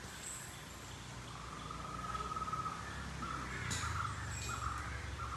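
Crows cawing over and over, with a low rumble of background noise underneath and a single sharp knock partway through.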